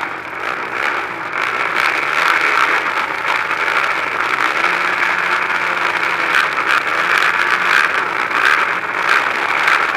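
Several racing quad engines idling and revving together at a starting line: a dense, steady drone whose pitch wavers up and down as throttles are blipped.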